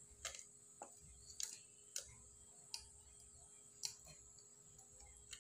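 Faint handling of a cardboard cream carton: about seven short, irregular clicks and taps over near-silent room tone.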